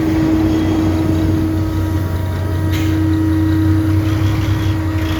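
Heavy diesel machinery running steadily: a continuous deep drone with a constant mid-pitched tone over it, and one short sharp clank a little under three seconds in.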